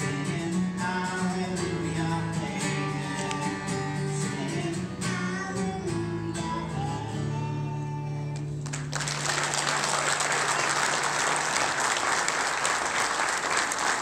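A boy and a man singing a duet to an acoustic guitar, the song ending on a held note; about nine seconds in, audience applause breaks out suddenly and carries on.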